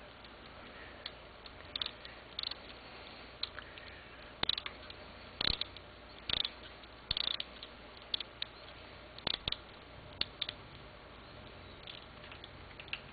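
Irregular light clicks and taps of a small hand tool turning a screw into the seated nut of a bicycle tail-light seatpost mount, some coming in quick pairs and clusters.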